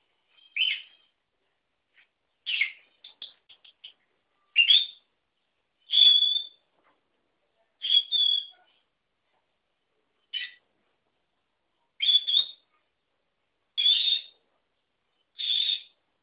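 Lutino peach-faced lovebird giving short, sharp calls, about nine of them roughly two seconds apart, with a quick run of small chirps after the second; its owners hear the calls as 'Leti, ven' and take them for the bird calling for its absent carer.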